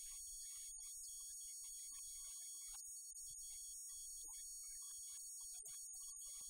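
Faint steady electrical hum and hiss with a thin high-pitched whine and a fluttering low rumble; no clear speech.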